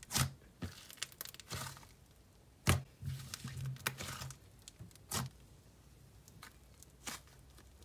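Pink butter slime, a glue slime mixed with clay, being pressed, gathered and stretched by hand on a desk: a handful of sharp clicks a second or two apart, with soft crackling and tearing as it pulls.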